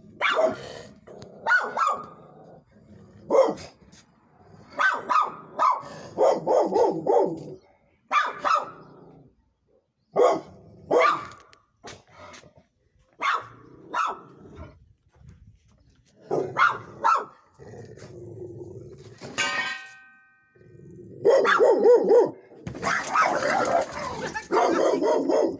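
A dog barking repeatedly, in single barks and short runs, with a brief high whine about two-thirds of the way through and a dense flurry of barking near the end.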